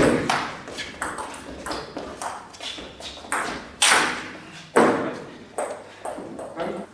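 Table tennis ball being hit back and forth in a fast rally: a quick series of sharp ping-pong clicks from bats and table bounces, echoing in a large hall, with a few louder strokes around the middle.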